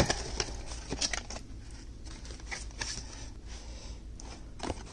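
A boxed die-cast model truck in cardboard and plastic packaging is handled with gloved hands: scattered light rustles and taps, the loudest near the end, over a low steady hum.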